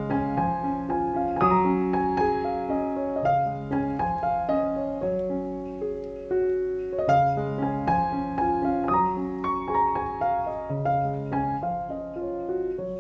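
Background piano music: a melody of short notes over held low chords that change every second or two.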